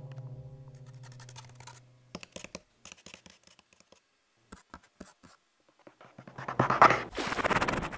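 A low held musical note fades out, followed by scattered dry scratching clicks, then a loud, rough scratching burst about six and a half seconds in that lasts over a second.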